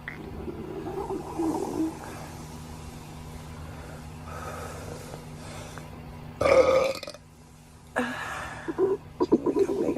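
A person burping from a gassy, upset stomach. A loud burp comes about six and a half seconds in, another about a second and a half later, then a rough, broken one near the end, with softer rumbly sounds early on and a steady low hum underneath.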